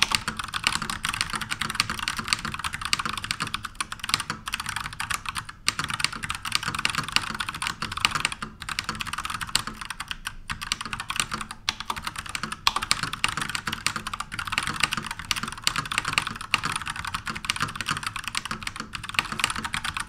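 Continuous typing on an Akko 5108 full-size mechanical keyboard fitted with purple switches: a dense, fast clatter of key presses, broken by a few brief pauses.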